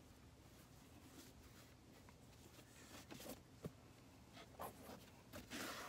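Near silence, with faint rustling and light scratchy handling noises as a sneaker is turned over in the hands, and a brief louder scrape near the end.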